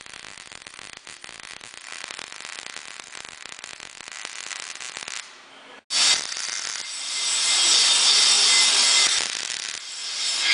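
Electric arc welding crackling for about the first six seconds. Then a homemade friction welder runs: its electric motor spins a steel rod pressed against a fixed steel piece, giving a steady grinding hiss with a faint whine that grows louder about a second later as the rubbing joint heats to a glow.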